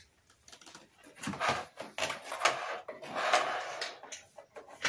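Rustling and scraping handling noises with a few knocks, in several bursts from about a second in until near the end.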